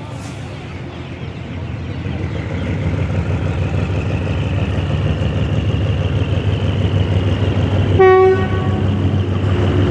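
Diesel locomotive approaching slowly over a steel railway bridge, its low engine rumble growing louder. About eight seconds in it gives one short horn blast.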